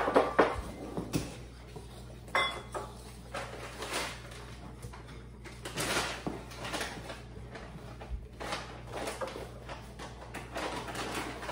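Wire whisk stirring thick chocolate cake batter in a mixing bowl, with irregular light clicks and scrapes of the whisk against the bowl.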